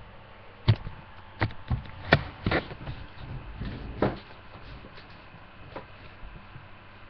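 Handling noise: a run of sharp knocks and bumps, about six in the first four seconds and one more near six seconds, as the webcam is touched and moved.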